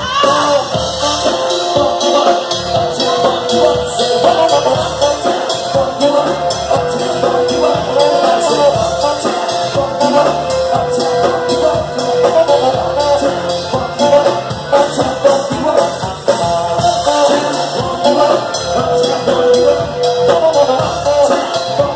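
A live band playing loud amplified music, with drums, electric guitar, bass guitar and saxophone.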